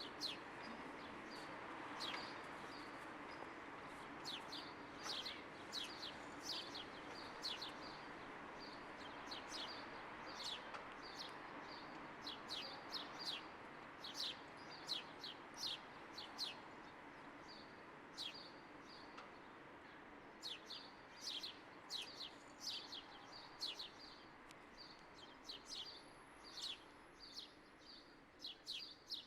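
Small birds chirping in a rapid series of short, high chirps, several a second, over a steady background hiss that fades slowly.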